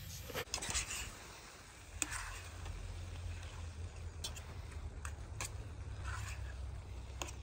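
Fish frying in a pan on a Trangia spirit burner while being stirred and broken up, the utensil clicking and scraping against the pan a few times over a faint steady hiss.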